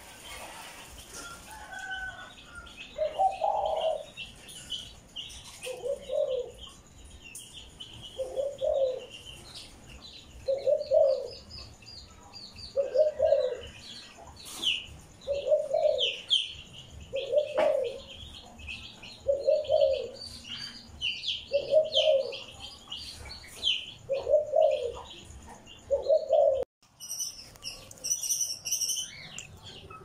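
Cage birds calling: a low dove-like coo repeats about every two seconds over steady high chirping and chattering from small parrots. About three seconds before the end the sound breaks off, and faster, higher chirps follow.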